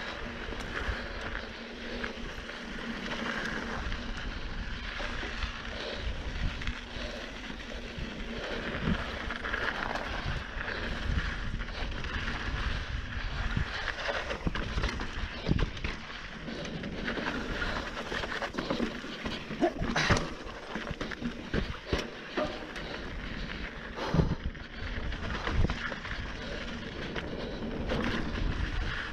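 Mountain bike riding fast down a dirt singletrack: knobby tyres rolling over dirt and rock with wind on the microphone, and sharp clunks and rattles from the bike over bumps, the loudest about twenty and twenty-four seconds in.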